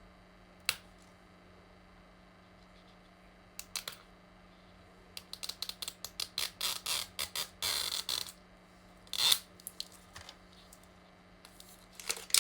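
A Mini Brands plastic capsule ball and its packaging being handled and opened: a single sharp click about a second in, then a run of rapid plastic clicks and crinkling from a few seconds in, busiest in the second half.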